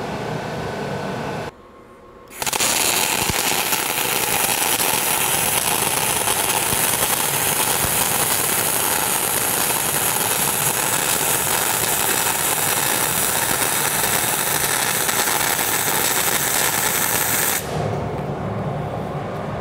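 MIG welding arc from an ESAB EM 235ic welder on 3/8-inch steel plate, running 0.035 solid wire with pure argon shielding gas at 30 volts. The arc starts about two seconds in, runs loud and steady for about fifteen seconds, and stops near the end. It never settles into a stable true spray transfer, the sign of pure argon's unsuitability for MIG on carbon steel.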